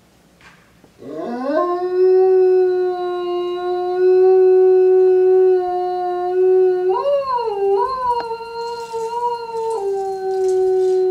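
Eastern timber wolf howling: one long howl that glides up into a steady held note about a second in, wavers up and down for a couple of seconds past the middle, then drops to a lower held note near the end.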